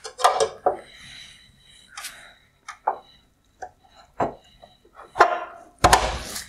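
Flathead screwdriver prying and scraping at the plastic clips and housing of a 2020 Mercedes-Benz CLA LED headlight to release the high-beam reflector: irregular clicks, knocks and short scrapes of hard plastic, with a louder scraping near the end.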